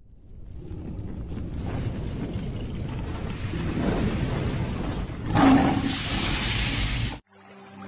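Fiery rumbling intro sound effect that swells up from silence, with a louder whoosh about five seconds in, and cuts off abruptly near the end; electronic music starts straight after.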